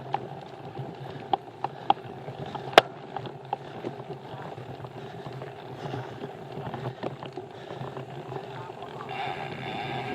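Mountain bike rolling along a trail: steady tyre and drivetrain noise with a few sharp knocks and rattles from the bike, the loudest a little under three seconds in.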